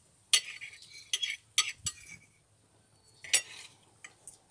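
Knife and fork scraping and clinking against a plate while cutting meat: four or five short, sharp scrapes, the loudest about a third of a second in and again a little over three seconds in.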